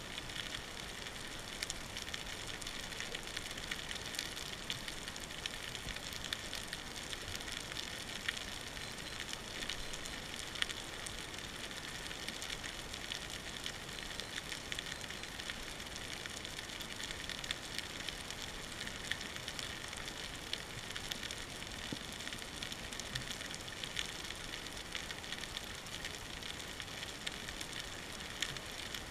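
Underwater ambience picked up by a diving camera: a steady, faint crackle of many tiny clicks over a hiss, with no single event standing out.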